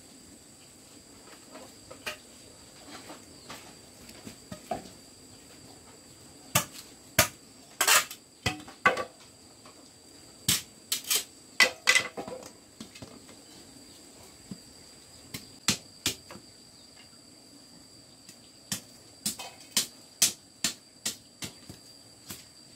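Irregular sharp knocks and clicks, sparse at first, then in quick clusters through the middle and again near the end. Under them runs a steady high insect buzz of crickets or cicadas.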